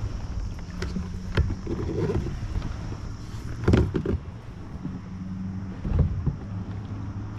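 Sounds of a fishing kayak out on the water: a steady low hum broken by several sharp knocks. The loudest knock comes about four seconds in and another about six seconds in.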